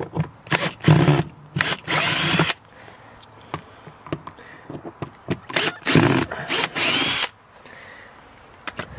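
Cordless drill-driver with a Torx bit backing out the screws that hold an outdoor faucet to a wooden wall. The motor runs twice, each time for about two seconds, with a whine that rises and falls, and there are short clicks between the runs.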